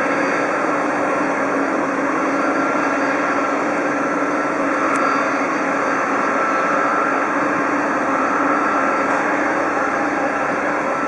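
Jet engines of a Boeing 747 airliner running at taxi power: a steady, even engine noise with a steady whine held through it.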